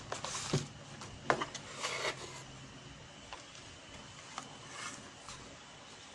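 A TV circuit board being picked up and turned over on a workbench: a few short knocks and clicks in the first two seconds, then light rubbing and faint ticks.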